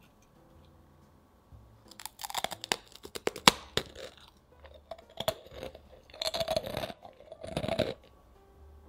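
Thin, crisp rolled langue de chat (cigarette) cookie crunching as it is bitten and chewed: a run of sharp crackling crunches about two seconds in, then two longer crunchy bursts near the end.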